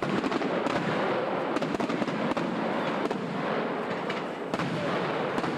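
Fireworks crackling: a dense, steady rush of many small pops and bangs.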